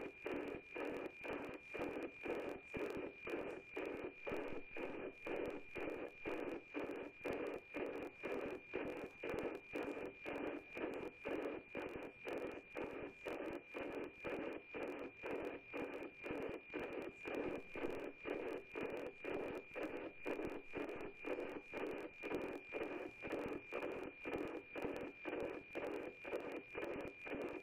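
NOAA-18 weather satellite's APT image signal as heard from the radio receiver: a steady high whistle with a rhythmic tick-tock about twice a second, one beat per image line, under a haze of static.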